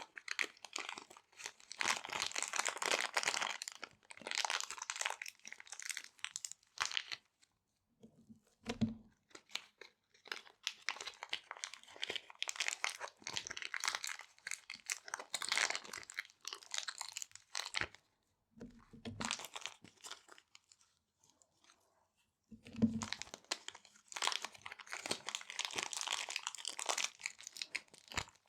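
Small resealable plastic bags crinkling and rustling as they are handled, in bursts of several seconds with short pauses between them and a few soft low thumps.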